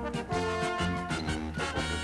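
Brass-led swing music with a steady beat.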